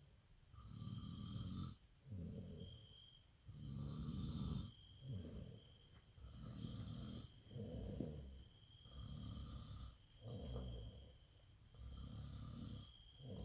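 A sleeping person snoring, breath after breath in a steady rhythm.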